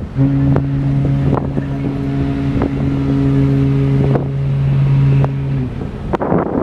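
Ship's horn of the BC Ferries Spirit of Vancouver Island sounding one long, deep, steady blast of about five and a half seconds that stops cleanly, heard over wind buffeting the microphone.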